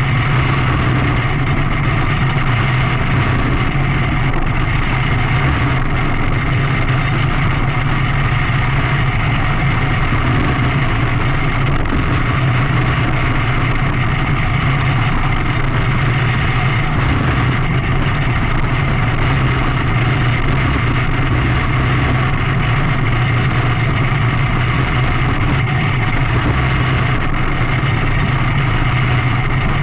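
Engine of a small open-cockpit dirt-track race car running at a steady, unchanging pitch, heard from on board.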